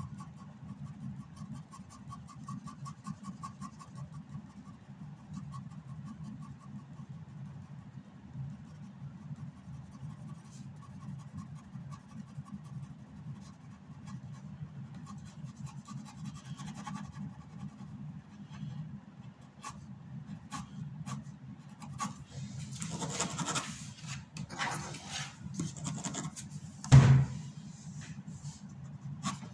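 Felt-tip ink pen scratching across paper in many short hatching strokes, over a steady low hum. One loud thump sounds near the end.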